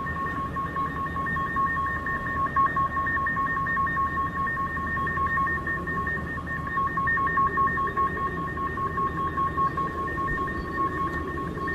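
A steady two-tone electronic-sounding hum with a rapid flutter, over a low rumbling background, presented as a mysterious 'strange sound' in the sky.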